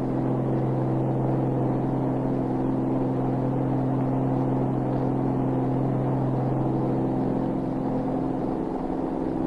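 Flying boat's piston engines droning steadily in cruising flight: a constant low hum with several steady tones.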